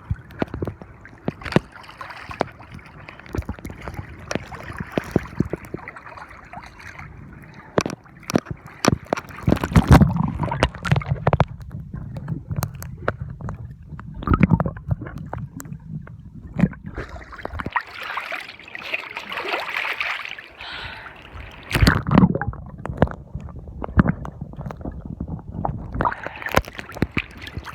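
Sea water sloshing and gurgling around a camera sealed in a plastic waterproof bag, with frequent sharp knocks and rubbing of the bag as it moves in the water.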